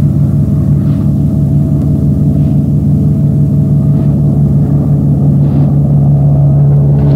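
Diesel-electric X class locomotive's Crossley two-stroke engine running under load as it pulls a train away, a loud steady drone that swells a little near the end.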